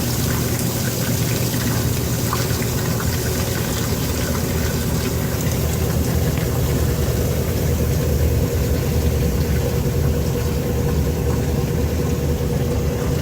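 1962 Norge washing machine running with a steady, even mechanical drone from its motor and drive, over a wash of water noise.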